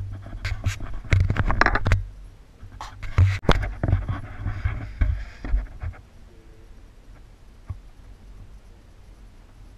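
Handling noise on the camera's microphone: irregular scratching and rubbing with low thumps for about six seconds as the camera is moved, then faint room tone.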